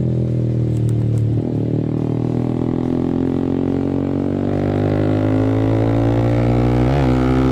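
Yamaha R15 V3's 155 cc single-cylinder engine running loud through an aftermarket R9 racing exhaust while riding. Its note dips about a second and a half in, then climbs slowly as the bike pulls, with a quick change in pitch near the end.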